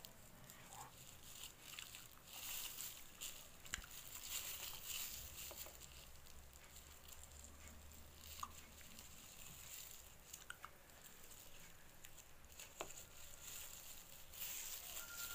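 Faint rustling and crinkling of plastic-bag strips being worked by hand with a crochet hook, coming in intermittent bursts with a few small clicks, loudest about two to four seconds in and again near the end.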